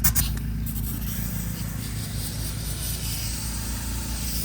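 Compressed air hissing steadily as the valve is opened to blow out an irrigation line, after a brief clatter at the start. Under it, a generator engine hums steadily.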